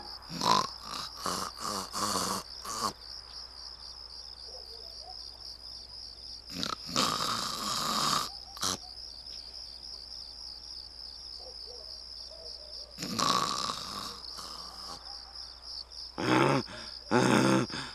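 Cartoon snoring from a sleeping man, in separate snores several seconds apart, over a steady high chirping of crickets. Near the end a donkey starts braying in short, loud calls.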